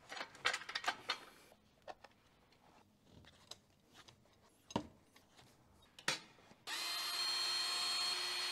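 Clicking and knocking of hand tools working a car's front wheel while it is jacked up: a floor jack being pumped and a wrench on the wheel bolts. Near the end a cordless power tool runs steadily for about two seconds, spinning out a wheel bolt.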